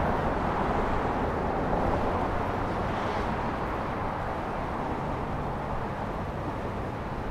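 Steady road traffic noise from cars passing on a multi-lane city street, easing off slightly toward the end.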